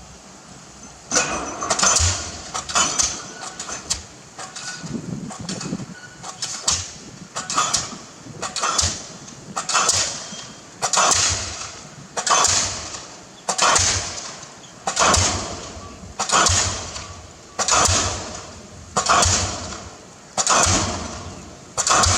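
Arcon DD-55 diesel pile hammer starting up about a second in, with a few uneven blows, then settling into steady firing, one sharp bang about every 1.2 seconds, as it drives a precast concrete pile.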